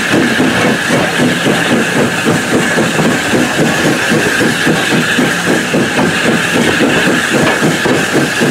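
Passenger train running, heard from an open carriage window: a steady rush of wheel and wind noise with a rapid, even pulsing of about five beats a second.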